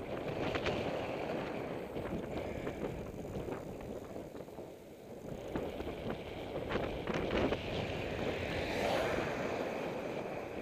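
Wind buffeting the microphone of a camera riding on a moving bicycle, over the rumble of tyres on a wet road, with a few short clicks and rattles from the bike, one near the start and a cluster about seven seconds in.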